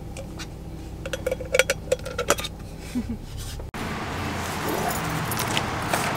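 A quick run of sharp clinks and clicks as a travel mug and its lid are handled, over a low car-cabin hum. About two-thirds of the way in it cuts to steady outdoor background noise.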